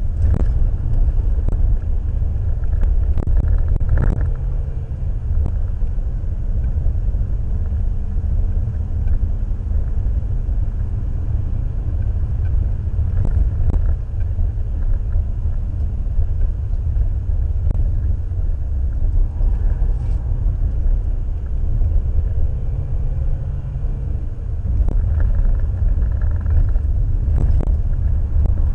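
Citroën Xantia driven hard on a winding road, heard from inside the cabin: a steady low rumble of engine and tyres, with the engine note shifting in pitch several times. A few short knocks sound over it.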